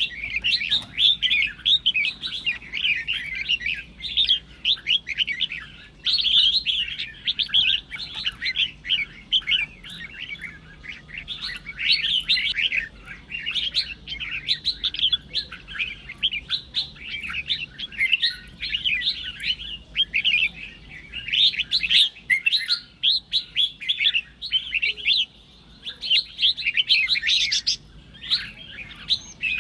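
Red-whiskered bulbuls singing and chattering in a fast, dense stream of high chirps, with only brief lulls.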